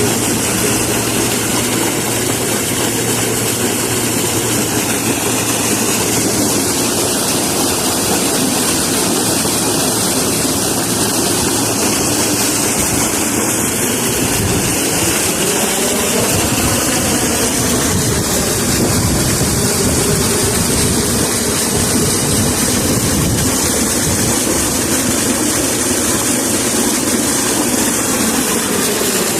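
Water gushing steadily from a 35 HP submersible pump's discharge, a loud continuous rush, with a low steady hum underneath through roughly the first half.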